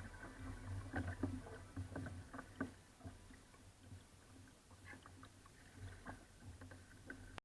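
Faint irregular knocks and taps on a kayak, over a low steady rumble; the sound cuts off just before the end.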